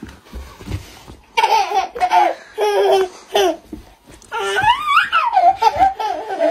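A toddler laughing in two long runs, the first starting about a second and a half in and the second about four and a half seconds in.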